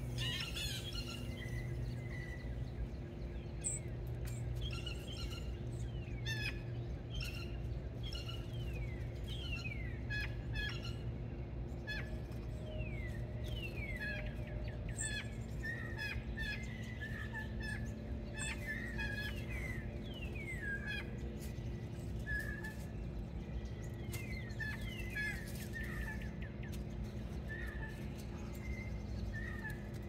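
Small songbirds at a feeder chirping and calling throughout, mostly quick downward-sliding chirps and short clipped notes, several birds overlapping. Under them runs a steady low hum.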